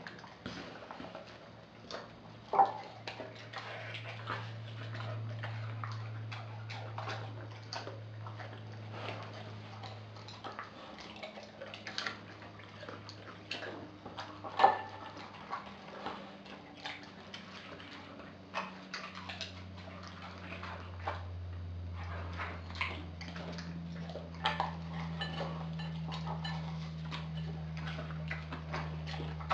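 Dog eating raw meat chunks from a glass bowl: irregular wet chewing with many sharp clicks and knocks, over a steady low hum.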